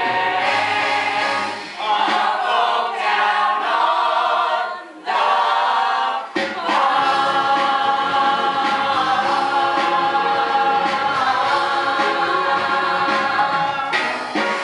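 Musical-theatre ensemble singing in chorus, with a brief break about five seconds in, then one long held final chord that ends near the end.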